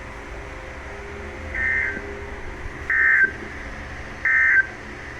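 Emergency Alert System digital data tones: three short, shrill two-tone bursts about a second and a half apart, the first fainter, over a low hum. The bursts are short enough to be the end-of-message code that closes a warning.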